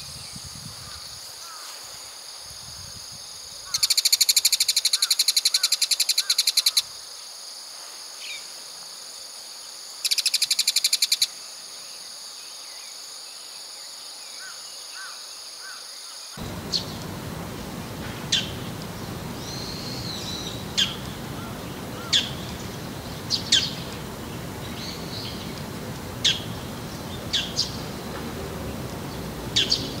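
Bull-headed shrike giving its harsh, rapid, high-pitched autumn territorial call (the 'takanaki') in loud bursts of a few seconds, answering a rival. From about halfway, sharp single call notes come about every one to two seconds.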